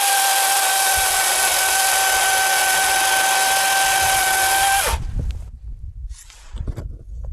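DeWalt DCM575 cordless chainsaw running flat out with a steady electric whine, then released about five seconds in and winding down. Irregular knocks and rustling of wood being handled follow.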